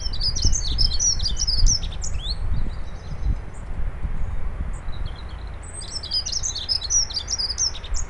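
A small songbird singing a rapid, high twittering song in two phrases: one in the first two seconds or so, and another from about five and a half seconds in. A steady low rumble runs underneath.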